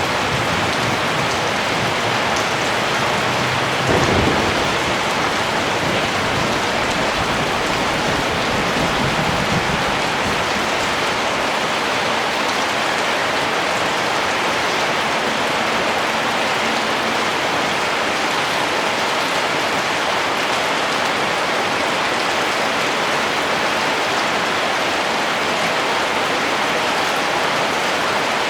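Steady rain falling, with a low rumble of thunder beginning about four seconds in and fading away over several seconds.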